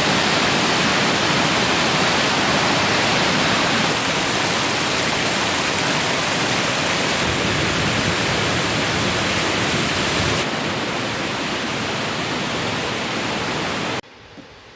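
Rushing water: a steady, dense hiss of flowing or falling water. It gets a little quieter about four seconds in and again about ten seconds in, then drops off much quieter just before the end.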